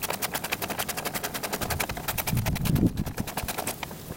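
Ratchet wrench with a 10 mm socket clicking rapidly, about ten clicks a second, as nuts are run down onto a hood latch. A low rumble comes in about two seconds in.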